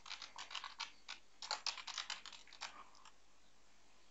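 Typing on a computer keyboard: a quick, irregular run of faint key clicks that stops about three seconds in.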